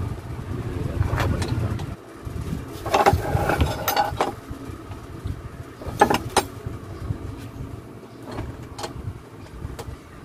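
Metal hand tools clinking and knocking against engine parts and a wooden workbench: scattered sharp clinks, the loudest about three and six seconds in, over a low background rumble.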